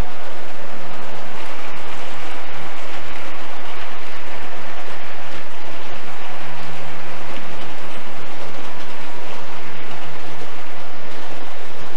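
HO scale model coal train's hopper cars rolling past on the track, with a steady rolling rattle of small metal wheels on the rails over a low hum.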